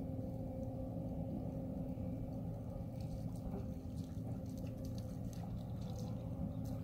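Steady low mechanical hum with a thin steady tone above it, and a few faint ticks in the second half.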